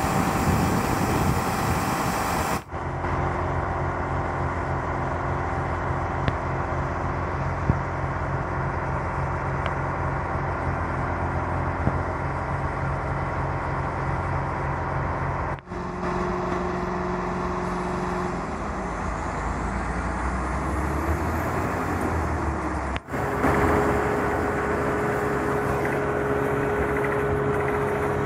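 Truck-mounted water bore drilling rig running: a steady mechanical engine drone with several held tones. The sound changes abruptly three times.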